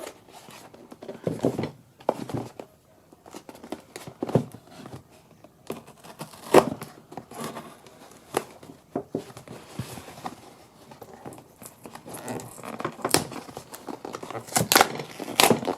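Shipping packaging being handled and torn open by hand: irregular crinkling, rustling and tearing, with sharp crackles that get busier near the end.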